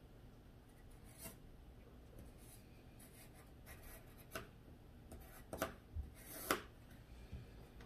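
Graphite pencil sketching on drawing paper: faint scratching with a few short, sharper strokes, the loudest about five and a half and six and a half seconds in.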